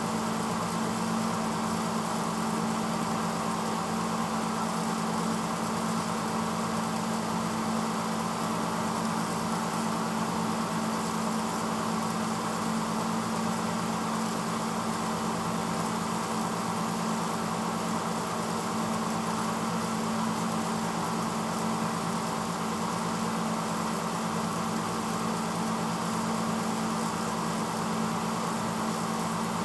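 1986 Hotpoint Potwasher dishwasher running mid-cycle: its pump motor hums steadily under a steady rushing hiss of water circulating inside the tub.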